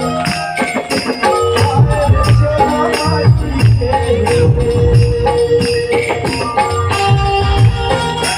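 Instrumental passage of a live Chhattisgarhi Ramayan bhajan: a melody of long held notes over a steady drum beat and jingling hand percussion.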